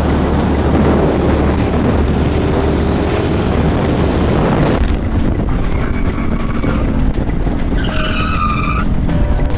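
Motorcycle riding at speed, its engine rumble buried in heavy wind noise on the rider's camera microphone, with a short high squeal near the end.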